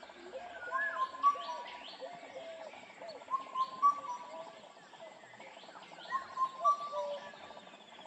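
Several birds calling together: short whistled notes repeated in phrases of a few notes, with sharp high chirps over them. Among them is the Indian cuckoo's whistled four-note call.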